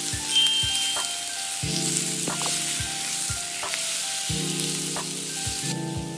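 Food sizzling in a frying pan, a steady hiss that dies away shortly before the end.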